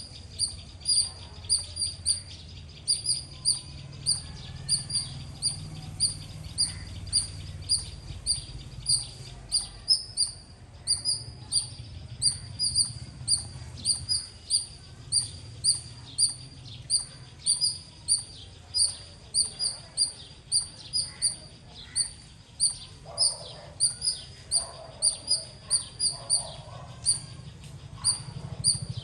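Squirrel giving a long run of loud, high-pitched chirps, about two to three a second, with only brief pauses.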